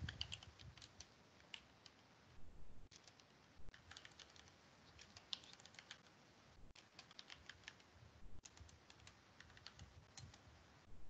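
Faint typing on a computer keyboard: short runs of key clicks with brief pauses between them.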